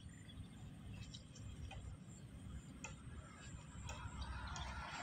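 Faint scattered clicks as a cast net is gathered in the hands, its lead sinkers clinking together, over a low steady rumble. A soft rush of noise comes in about four seconds in.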